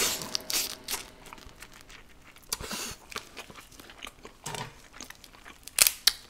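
Eating cooked crab and lobster: shells cracking and meat being pulled apart, with crunching and wet chewing, in scattered sharp crackles. The loudest cluster of cracks comes near the end.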